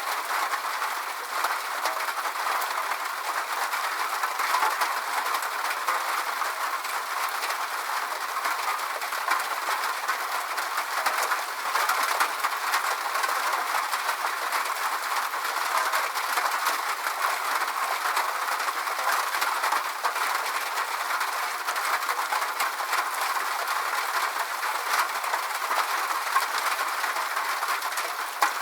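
Steady rain falling: an even hiss thick with tiny drop ticks, unchanging throughout, with no deep rumble under it.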